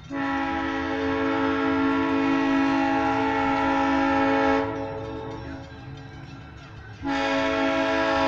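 Multi-chime railroad air horn sounding a long, steady chord, which stops about four and a half seconds in and starts again at about seven seconds.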